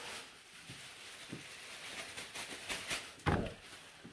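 Handling of a boxed electric grill and its cardboard packaging: light rustling and small taps, then a dull thump about three seconds in.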